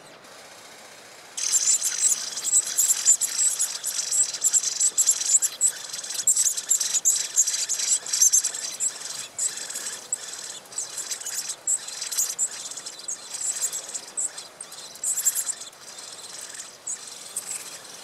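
Common blackbird nestlings begging: a sudden outburst of high, thin, rapid calls about a second and a half in that goes on and fades near the end. It is the chicks' food-begging as the parent arrives at the nest to feed them.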